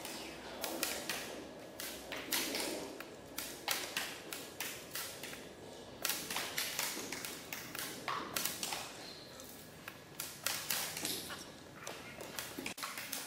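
Sport blowguns being fired in turn by a line of shooters: a series of irregular sharp pops and taps as darts are puffed out and strike, echoing in a large sports hall.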